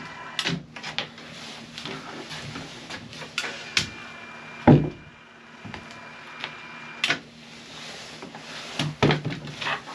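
Cordless caulking gun laying a bead of sealant along a timber, its motor giving a thin steady whine for a few seconds in the middle, among knocks and clicks of the gun and wood being handled on the boards.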